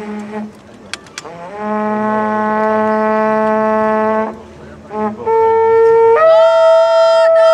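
Conch-shell trumpet blown in long held notes. One note lasts about three seconds and slides up in pitch as it starts; after a short break a second note steps up to a higher pitch and holds.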